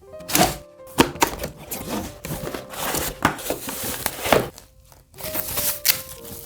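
Packaging of a new portable speaker being handled and opened: irregular crinkling and rustling of wrapping with sharp clicks and knocks against the box.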